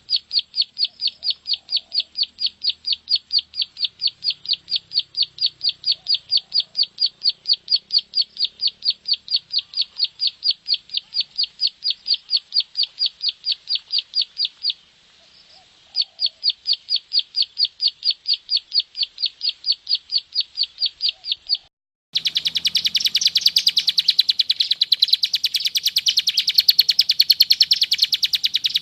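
Ciblek sawah (prenjak sawah, a prinia) giving its rapid 'klik' call: a long run of short, high, evenly repeated clicking notes, several a second, with a brief break about halfway. About three-quarters of the way in, a louder, faster and harsher run of the same kind of notes starts over a low hum, which sounds like a different recording.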